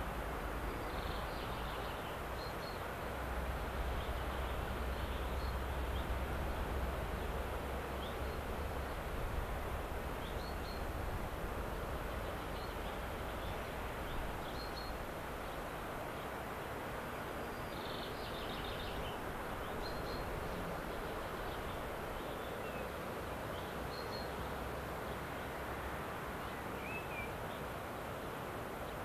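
Steady outdoor background hush with a low rumble, strongest a few seconds in, and brief high bird chirps scattered throughout.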